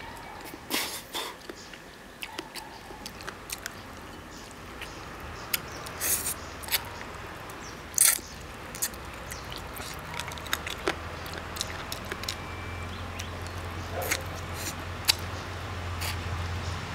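A person eating shell-on spicy prawns: biting and chewing, with many short sharp clicks and crunches scattered irregularly through the mouthfuls.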